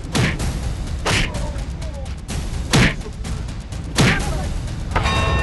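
Four heavy whooshing hits, each dropping quickly from a hiss to a low thud, about one to one and a half seconds apart, over a steady low rumble.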